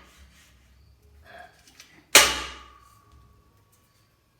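A loud metallic clang about two seconds in, steel power rack parts knocking together, ringing on with a single tone for about two seconds; a few light knocks before it.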